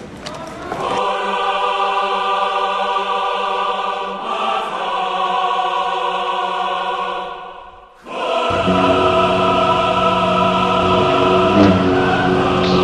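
Dramatic choral music: long held chords sung by a choir. It fades out about eight seconds in, then a new, fuller chord comes in with a heavier low end.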